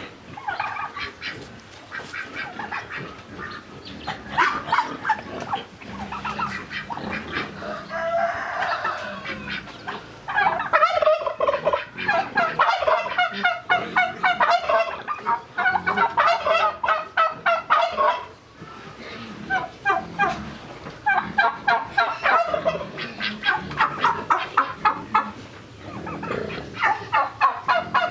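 Domestic fowl calling as a flock, in long runs of rapid pulsed calls that get louder from about ten seconds in.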